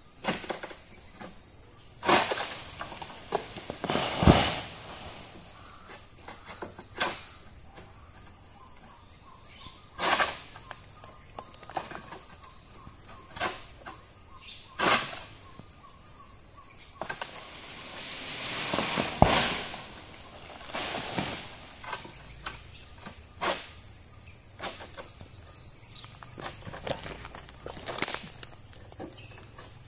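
Steady high-pitched insect drone, broken every few seconds by sharp knocks and rustling swishes from a long-poled harvesting sickle cutting at a tall oil palm's crown. About nineteen seconds in there is a longer rustle that swells and ends in a sharp knock.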